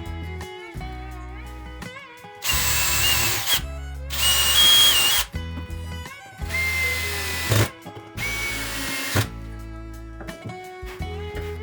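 Power drill run in four short bursts of about a second each, holding a steady pitch while it runs; the second burst is the loudest. Guitar background music plays underneath.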